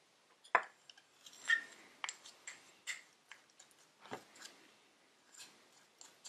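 A small metal knife scraping and tapping against a little glass jar as wood putty is mixed inside it, with irregular light clicks and clinks of glass and brief scrapes.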